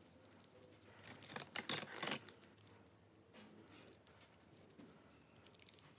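Gloved hands handling a phone's plastic frame up close: a burst of rustling and small clicks lasting about a second, starting about a second in, then a few faint clicks near the end.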